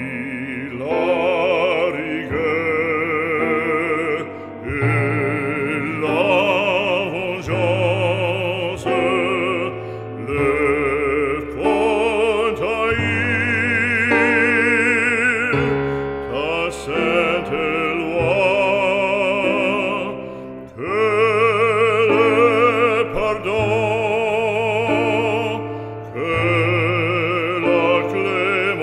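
Background music: an operatic singer holds long notes with wide vibrato over a steady instrumental accompaniment.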